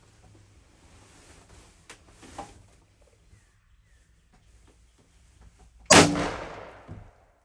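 A single shotgun blast fired at a wild turkey about six seconds in: a sudden loud bang whose tail dies away over about a second. Before it there are only faint rustles and a small click.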